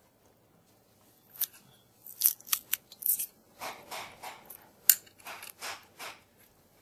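Tension pin being worked loose and pulled out of a roller-shade bracket by hand. There are a few sharp clicks, then a run of quick scraping strokes with another sharp click in the middle, sounding much like scissors snipping.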